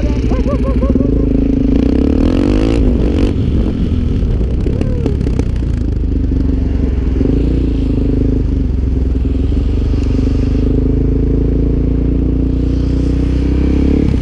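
Motorcycle engine running under way, heard from the rider's helmet camera with wind rushing over the microphone. The engine note drops and climbs with the throttle and gear changes.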